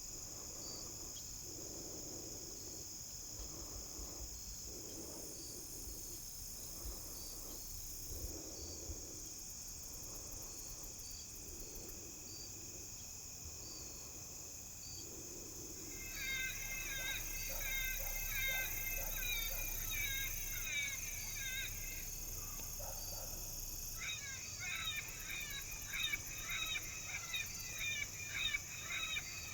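Insects trilling steadily. Over them come animal calls used to call in coyotes: for the first half a low, wavering call repeated about once a second, then from about halfway a louder, high, rapid yelping series that breaks off briefly and starts again.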